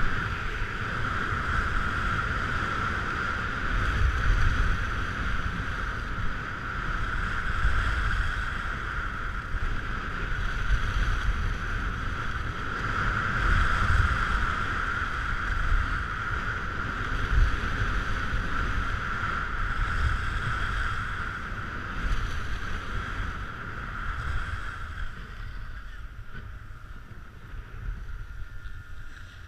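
Wind buffeting a GoPro's microphone during a ski run, over a steady hiss of skis sliding on snow. It fades near the end.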